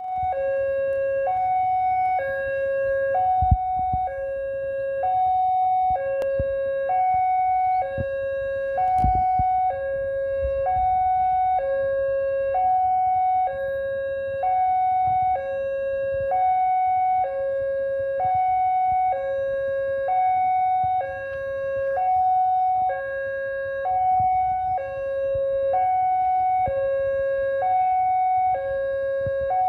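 Railway level-crossing warning alarm sounding: an electronic two-note tone alternating high and low, each note about a second long, warning that a train is approaching. A few low thumps break in now and then.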